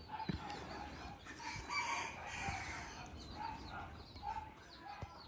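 A rooster crows, loudest about two seconds in, with chickens clucking around it.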